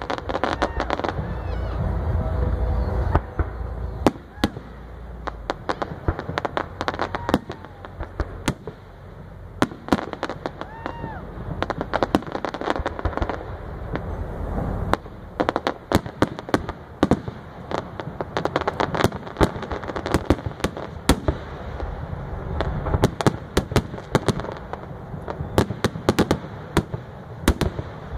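Fireworks display: aerial shells bursting in a rapid, dense run of sharp bangs and crackles, thickest in the second half, over a low rumble.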